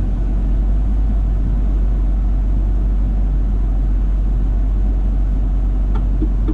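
Car driving at a steady pace: a constant low road rumble of tyres and engine.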